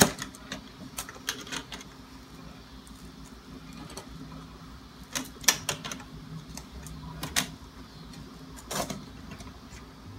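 Metal springform cake pan being unclipped and its side ring worked loose and lifted off the cake: a scatter of sharp metallic clicks and clacks, the loudest about halfway through.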